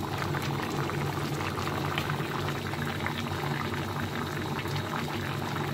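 Fish curry bubbling in a pan: a dense, steady crackle of small bubbles popping, over a steady low hum.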